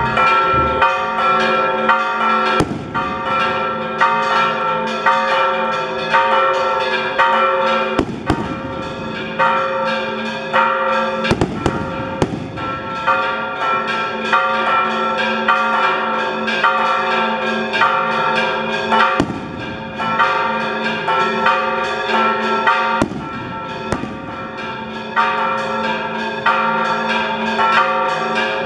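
Church bells pealing in a quick, continuous rhythm: several bells of different pitch struck over and over and ringing on. A few sharp bangs cut in, one cluster about a third of the way through.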